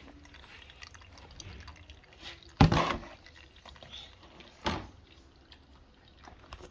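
Water dripping and trickling, broken by a loud sudden knock about two and a half seconds in and a smaller one near five seconds.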